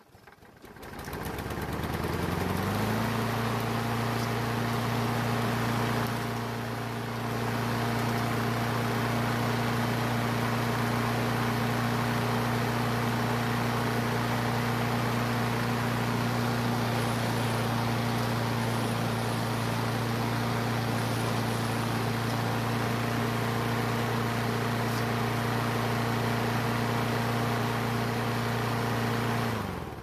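Craftsman self-propelled lawn mower's small engine catches at once and speeds up over a couple of seconds, then runs at a steady speed. Near the end it slows and stops. It is running well after its carburetor seat was replaced to cure a fuel leak, and it sounds great.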